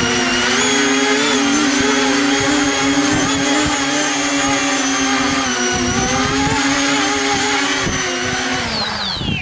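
RC model airplane's motor and propeller running with a steady high whine, its pitch dropping sharply near the end as the motor winds down. Wind rumbles on the microphone underneath.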